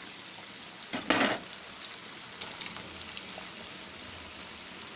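Chicken pieces sizzling steadily in hot oil in a nonstick pan. About a second in comes a brief, louder splash of sizzle as the green chilli-coriander paste lands in the oil.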